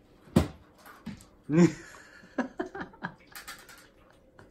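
A sharp knock about half a second in, as a playing cat rears against a plastic bin and drops to the floor, followed by a short human exclamation and a run of light taps and scuffles of the cat's paws on the wooden floor and rug.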